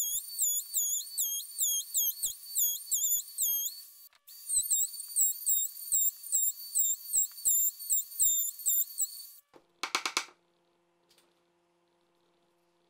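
Compact trim router running at high speed as it cuts the edge of a plywood ring, its high whine dipping in pitch about twice a second as the bit bites and recovering between bites, with a brief break about four seconds in. The router stops about three-quarters of the way through, followed by a short clatter and then near silence.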